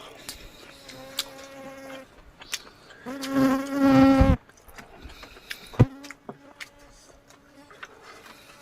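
A fly buzzing close to the microphone in three passes, loudest about three to four seconds in. A single sharp click comes near six seconds.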